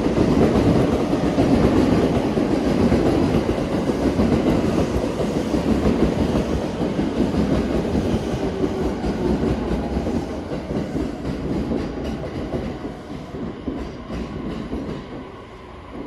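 JR East E231 series electric train departing, its wheels rumbling and clattering on the rails; the noise fades steadily over the second half as the train pulls away.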